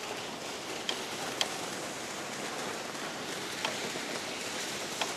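Steady hissing drive noise from a low-pressure-tyre all-terrain vehicle rolling downhill through deep snow under engine braking, with a few sharp clicks.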